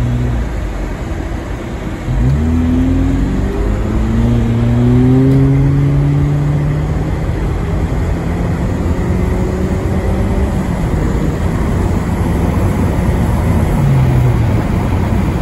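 Car engine pulling away and picking up speed, heard from inside the cabin: about two seconds in it gets louder and its pitch climbs for a few seconds, then holds steady at cruising speed, dipping briefly a couple of times. Road noise runs underneath.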